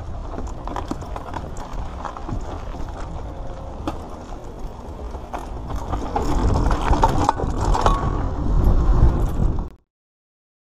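Mountain bike rolling fast over a dirt trail: a steady tyre rumble with the rattle and knocks of the bike over bumps. From about six seconds in it turns louder, with clattering as the tyres run over wooden planks. The sound cuts off suddenly near the end.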